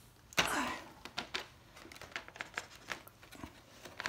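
Cardboard box of a 1:18 diecast model car being handled: a brief rustling scrape about half a second in, followed by scattered light taps and clicks of fingers and cardboard.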